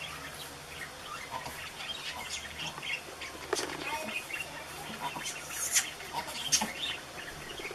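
Small birds chirping in short, scattered calls, with a few sharp clicks.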